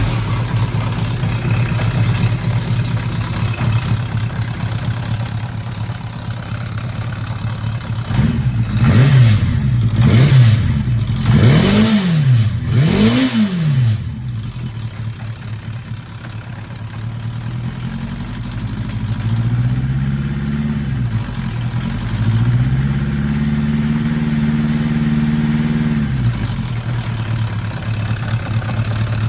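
Kawasaki Zephyr 750 air-cooled inline-four idling just after a start, with four quick throttle blips about a third of the way in and a longer spell at raised revs near the end before it settles back to idle. At idle it makes an abnormal noise that fades when the revs rise, which the owner hopes a cam chain adjustment will cure; the number 3 cylinder is still not burning fully.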